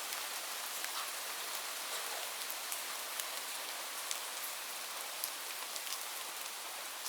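Light rain falling steadily: an even hiss of rain, with scattered individual drops ticking sharply on a surface.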